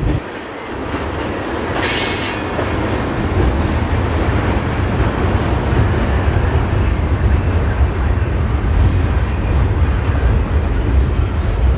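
Freight train cars, tank cars and centerbeam flatcars loaded with lumber, rolling past close by: a loud, steady rumble of steel wheels on rail, with a brief high-pitched squeal about two seconds in.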